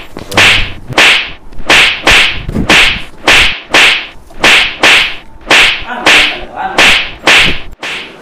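A rapid, even series of sharp whip-like lashes, about two a second and more than a dozen in all, each with a short swish before the crack, as blows rain down on a person. They stop just before the end.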